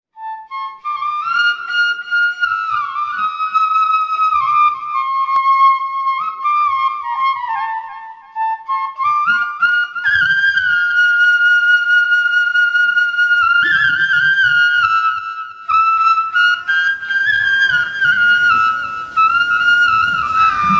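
Instrumental intro music: a solo flute melody moving in small steps, with a long held note about halfway through.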